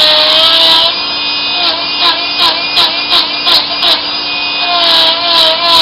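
Cordless die grinder's motor whining at speed while its bit cuts into wood. There is a sustained cut at the start, then a string of short quick strokes through the middle, then a longer cut again near the end.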